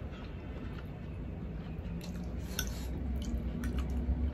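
Close-up eating sounds: chewing and wet, squishy mouth noises, with a few light clicks about halfway through and near the end. A steady low hum runs underneath.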